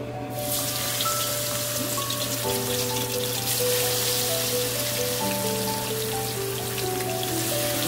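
Battered shepherd's purse (naengi) deep-frying in a pan of hot oil: a dense crackling sizzle that starts about half a second in and holds steady.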